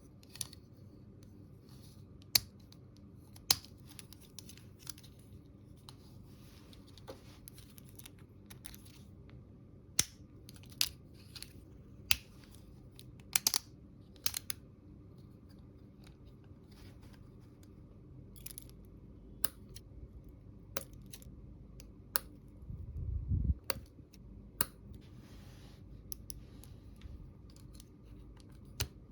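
Small plastic toy pieces being handled and set down: scattered sharp clicks and taps at uneven intervals, with soft rustling in between and one low thump about three-quarters of the way through.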